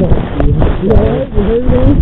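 A man's voice sounding without clear words, mixed with several short knocks and a noisy rustle.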